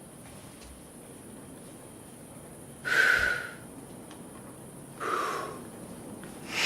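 Two short breathy exhalations, like sighs, about two seconds apart; the first is the louder.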